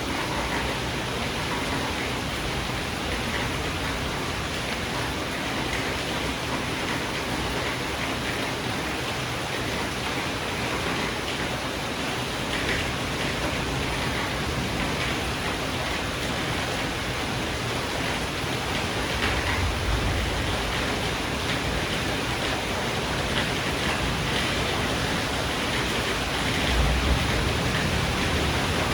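Steady rain falling during a thunderstorm, with two low rumbles of thunder, one about two-thirds of the way through and a louder one near the end.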